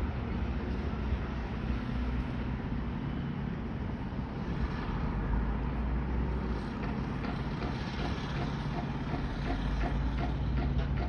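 Diesel engines of heavy earthmoving machinery, bulldozers and scrapers, running with a steady low rumble. From about two-thirds of the way in, a regular clanking of about two or three ticks a second joins it.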